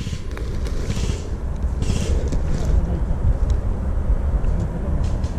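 Steady low rumble of wind buffeting the camera microphone. Footsteps rustle through moss, dry leaves and twigs a couple of times.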